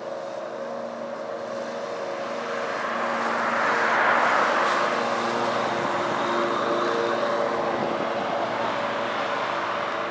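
A car passes close by the rider from behind: its tyre and engine noise swells to a peak about four seconds in, then slowly fades. A steady hum runs underneath.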